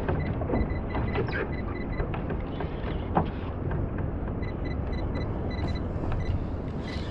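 Sea and wind noise around a kayak, with scattered creaks and clicks from a spinning reel and rod worked under load against a hooked fish.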